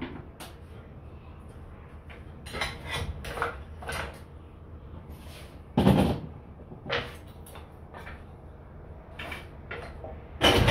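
Pieces of cut wood being picked up and set down on a steel workbench: scattered wooden knocks and clatters, the loudest about six seconds in.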